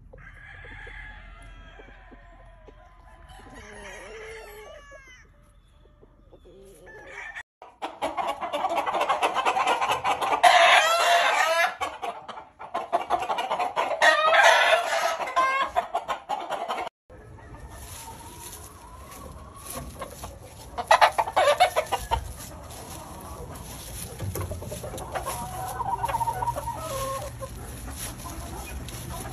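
Several chickens calling, roosters crowing over hens clucking, loudest and densest in the middle stretch. The sound breaks off abruptly twice.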